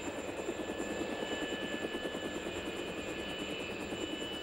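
Helicopter rotor chop: a fast, even pulsing over a steady turbine whine.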